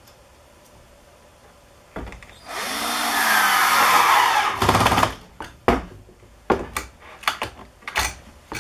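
Cordless drill driving a screw to fasten a toggle clamp onto a plywood jig board, running for about two seconds. It is followed by several sharp clicks and knocks.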